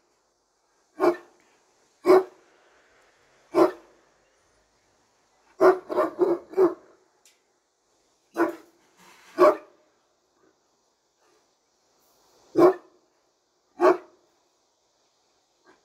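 Large dog, a Turkish Great Dane, barking: single loud barks a second or more apart, with a quick run of four or five barks in the middle.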